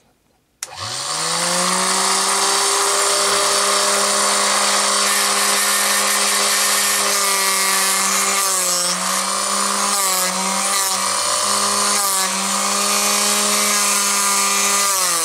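Proxxon BSG 220 drill sharpener switching on about half a second in, its motor and grinding wheel spinning up to a steady high whine. From about halfway on, the pitch sags briefly several times with a scraping grind as the twist drill is pressed against the wheel and loads the motor.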